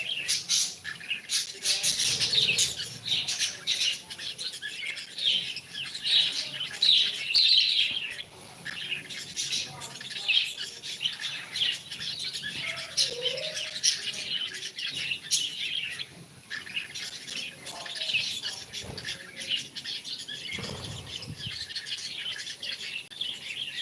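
Pet cockatiel chattering and chirping continuously, a dense run of short high chirps, with scattered sharp clicks.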